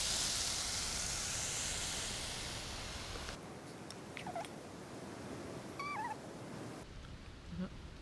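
Red peppers and mushrooms sizzling in a pot on a camping gas stove, a steady hiss that cuts off about three seconds in. After that it is quieter, with a short wavering high call near six seconds in.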